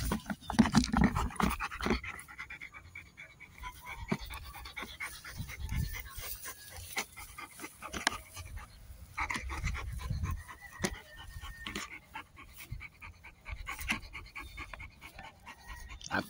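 Belgian Malinois panting hard while tugging on a rubber toy, with scuffling and scattered knocks from the toy and handling.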